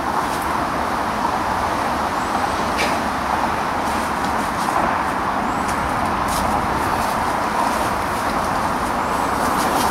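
Steady rushing outdoor noise with a few faint rustles and snaps from a person pushing on foot through dense undergrowth.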